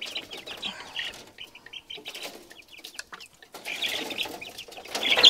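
Rhode Island Red chicks peeping: many short, high chirps that grow busier near the end. A few light knocks mid-way as plastic waterers are set down in the metal brooder.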